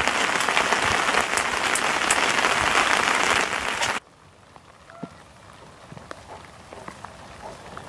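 Rain drumming on the fabric of a canopy tent, heard from inside: a dense, loud patter. About four seconds in it cuts off suddenly to a much quieter patter of light rain with scattered drips.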